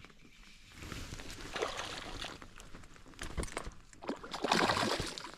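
Water splashing in two bouts, about a second in and again near the end, as a hooked cutthroat trout thrashes at the surface while being reeled in.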